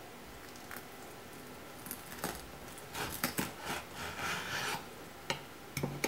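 Chef's knife sawing through a crisp, pan-fried egg-dipped bread sandwich on a wooden cutting board: crackly crunching of the toasted crust and the blade scraping the board, starting about two seconds in and lasting a few seconds, then a few sharp clicks near the end.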